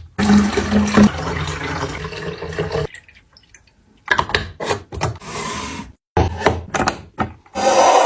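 Water running steadily for about three seconds, with a short low hum near the start. After a brief pause comes a string of quick knocks and rustles.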